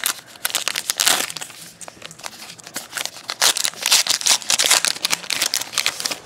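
Baseball card pack wrapper crinkling and tearing in the hands as the pack is opened and the cards are pulled out. It is a dense run of crackles, loudest about a second in and again from about three to five seconds.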